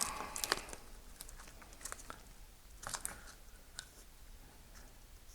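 Scattered light clicks and plastic rustles from handling a wiring harness and its plastic bulkhead connector, the wire terminals just pushed home; most of them in the first three seconds, fewer after.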